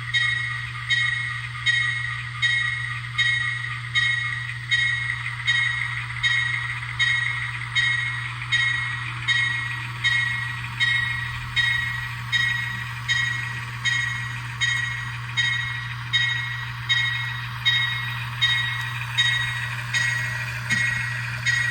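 Locomotive bell sound from a Digitrax sound decoder, played through the new 16 mm 8-ohm speaker of an N-scale Kato PA1: steady, evenly spaced bell strikes, about four every three seconds, each ringing and fading, over a steady low hum.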